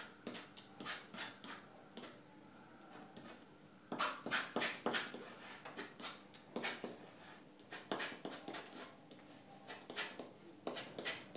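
Steel palette knife scraping and dabbing thick oil paint onto a stretched canvas in short, scratchy strokes. The strokes come in quick clusters, loudest about four to five seconds in.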